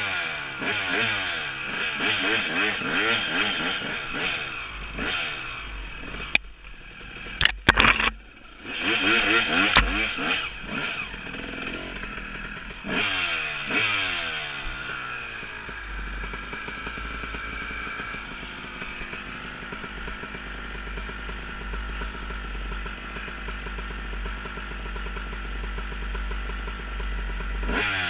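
Dirt bike engine revving up and down as the rider opens and closes the throttle along the trail, with a few sharp knocks about seven to eight seconds in. From about sixteen seconds it runs steadier at lower revs.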